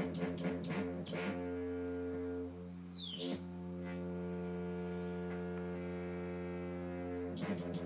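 Analog modular synthesizer tone from a MOTM-300 oscillator's sine run through a MOTM-510 wave warper, giving a buzzy drone rich in overtones. It pulses rapidly for the first second or so, with a saw wave from a MOTM-320 modulating the warper's offset, then holds steady. A high whistling tone dips and rises again about three seconds in, and the pulsing returns near the end.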